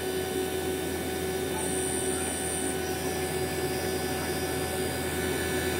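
Fieldpiece VP85 vacuum pump running with a steady, even hum as it evacuates a 50-pound refrigerant recovery tank down to a deep vacuum of a few hundred microns.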